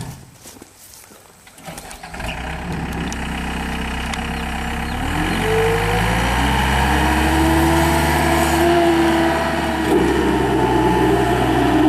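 Gehl 5640 skid steer's 84-horsepower turbocharged diesel engine starting about two seconds in, then throttled up, its pitch rising, and running steadily.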